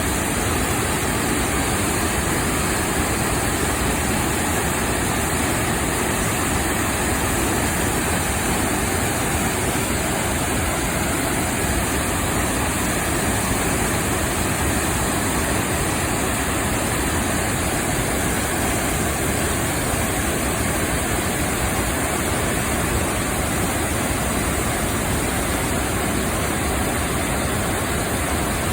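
Waterfall crashing into its pool in a steady, even roar of falling water, with no change in level.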